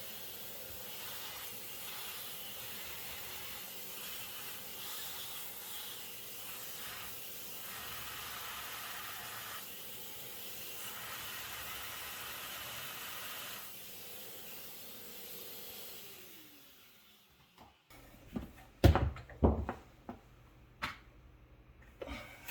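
Shop vac running as it sucks debris out of a dishwasher's pump housing, its rushing note shifting as the nozzle moves. About three-quarters of the way in it is switched off and winds down with a falling pitch, followed by a few loud knocks and clunks.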